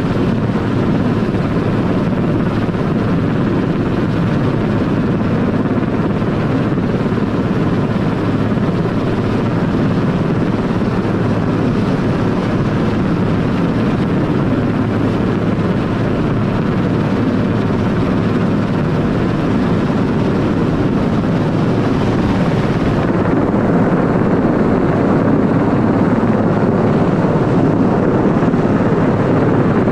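Helicopter hovering close overhead, its rotor and engine noise loud and steady. About three-quarters of the way through, the higher hiss above it falls away.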